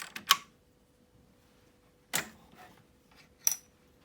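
A few sharp clicks and knocks from a toy cash register's drawer and the toy coins in it being handled: one click near the start, a louder knock about two seconds in, and a click with a brief high ring about three and a half seconds in.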